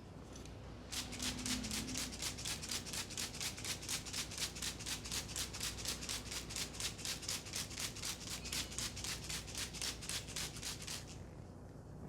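Hands rubbing briskly back and forth over a person's hair and scalp during a head massage, an even run of hissing strokes at about four a second. It starts about a second in and stops near the end.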